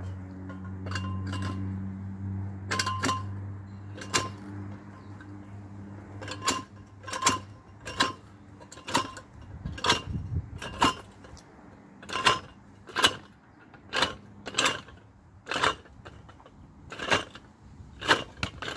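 Golf balls clicking one by one into the metal tube of a PGM portable golf ball picker as it is pressed down over them on grass, each ball knocking against those already inside. The clicks come about once or twice a second, some in quick pairs.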